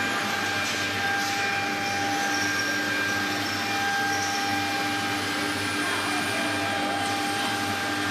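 Steady hum and whine of running CNC machinery, with several held tones over an even noise, and a faint gliding tone about six to seven seconds in.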